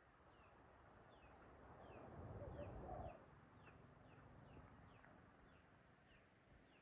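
Faint bird calls: a short, high, falling chirp repeated about twice a second. A brief swell of low rumbling noise comes and goes around two to three seconds in.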